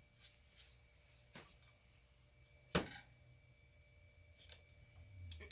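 Handling and cutting of cold process soap bars: a few light clicks and one sharper knock about three seconds in.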